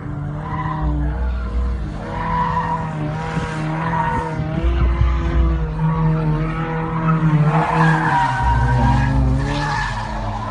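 Tires squealing as a pickup truck corners hard on the track, the squeal wavering up and down in pitch, over a steady low engine drone.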